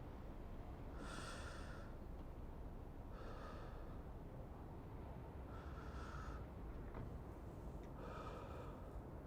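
A man's slow, close breathing into the microphone: four breaths about two and a half seconds apart, over a steady low background rumble of city ambience.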